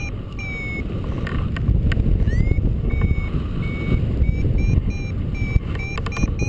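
Paragliding variometer beeping about four times a second, a steady climb tone. In the middle the beeps stretch into longer tones that slide in pitch, and the quick beeping picks up again near the end. Underneath is steady wind rush on the microphone from the glider's airspeed.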